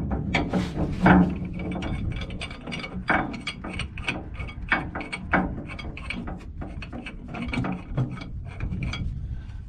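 Large steel pipe wrench turning a 3-inch stainless steel 90-degree elbow onto threaded pipe: a quick, irregular run of metal clicks and scrapes, several a second, as the wrench jaws bite, turn and reset on the fitting.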